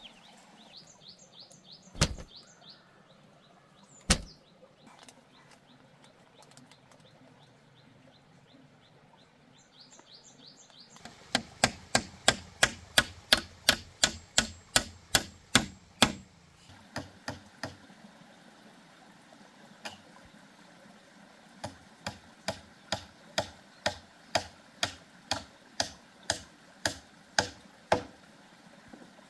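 Hammer driving nails through bamboo poles into a wooden log: two single blows, then a fast run of about three blows a second for some five seconds, and after a pause a slower run of about two blows a second.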